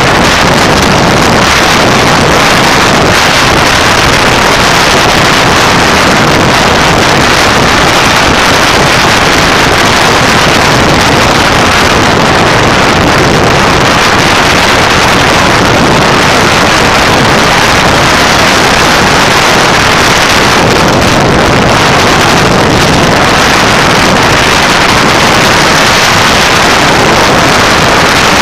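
Loud, steady rush of wind over a motorcycle-mounted camera's microphone at road speed, mixed with the motorcycle's engine and road noise.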